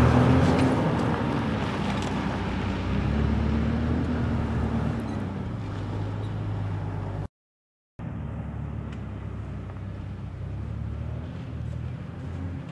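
Toyota Land Cruiser 80-series engine pulling in low-range four-wheel drive as the truck climbs away up a rutted dirt track, its pitch rising and falling with the throttle and fading with distance. The sound drops out completely for under a second about seven seconds in, then returns fainter.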